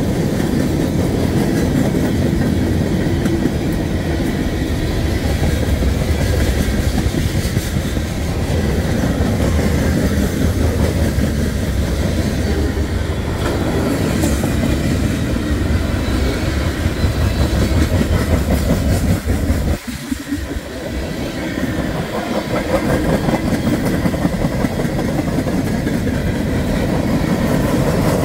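Freight cars of a long mixed freight train rolling past at track side: a steady rumble of steel wheels on the rails, with a brief lull about twenty seconds in.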